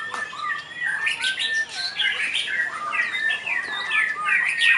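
Several caged white-rumped shamas (murai batu) singing at once: a dense, overlapping tangle of rapid whistled phrases and chirps with no pause.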